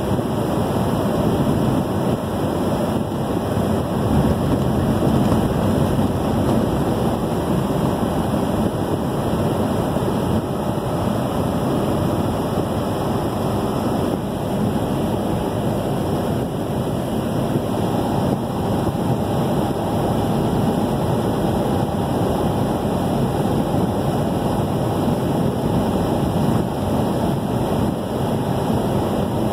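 Steady road noise from inside a car at highway speed: tyres on the pavement, the engine and wind blending into a constant sound with no distinct events.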